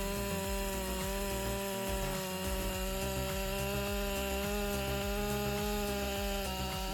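Powered log saw cutting through wood, its motor running under load at a steady pitch.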